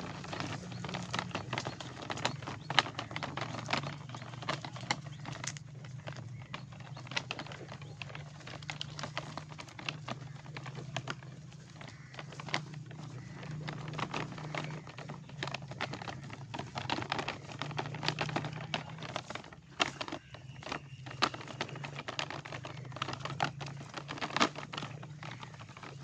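Plastic toy dump truck loaded with oranges and pruning shears moving over grass and rough ground, giving a steady run of irregular clicks and rattles from its wheels and load.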